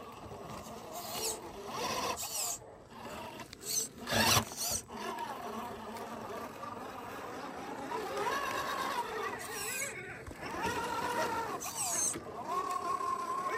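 Scale RC rock crawlers' small electric motors and geared drivetrains whining, the pitch rising and falling as the throttle is worked, with a sharp knock about four seconds in.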